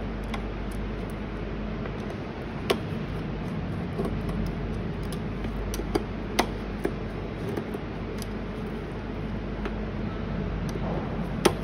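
Hand screwdriver working out the screws on an inverter's main circuit board: a few sharp clicks of metal on metal over a steady background hum.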